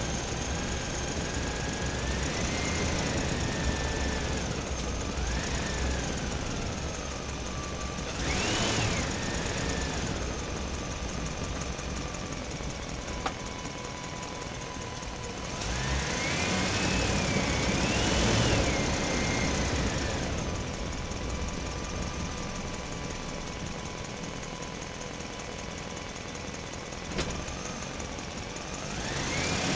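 Small electric gear motors of a wooden RC toy tractor whining as it drives through mud, the pitch rising and falling with the throttle. The whine surges louder about eight seconds in, again for several seconds in the middle, and near the end.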